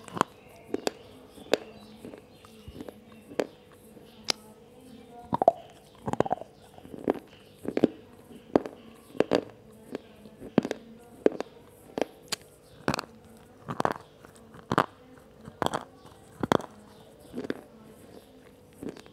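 Slate pencil being bitten and chewed right at the microphone: a run of sharp, dry crunches, roughly one every second or a little faster, as the chalky stick breaks between the teeth.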